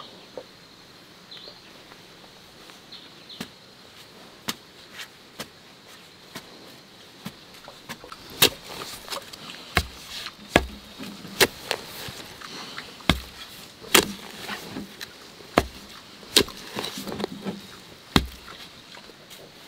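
Wooden pole jabbed again and again into damp clay soil to dig a small hole: a run of sharp thuds and scrapes. They come sparsely at first, then about one a second and louder in the second half.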